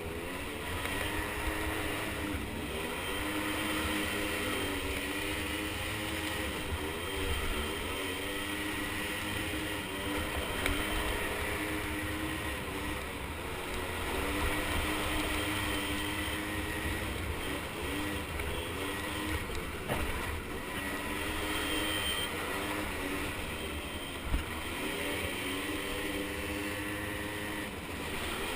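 Small 50cc ATV engines running, their pitch rising and falling again and again as they accelerate and ease off, with one sharp knock near the end.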